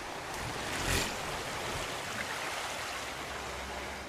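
Sea water washing steadily around a sailing ship, with one louder surge of water about a second in.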